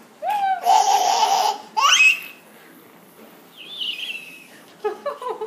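A young girl shrieking and squealing with laughter: a short cry, a long breathy scream, then a squeal climbing high, with softer giggling near the end.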